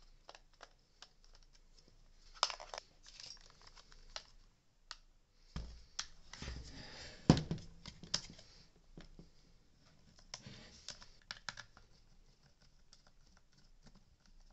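Small Phillips screwdriver working the screws out of a Dyson V8's plastic handle and battery pack, with scattered light clicks and plastic clatter. There is a louder stretch of handling noise and one sharp click about six to seven seconds in.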